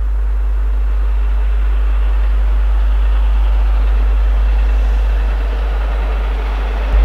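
Peppercorn A1 Pacific steam locomotive 60163 Tornado approaching at speed, a rushing noise growing steadily louder over a heavy low rumble that jumps up suddenly at the very end.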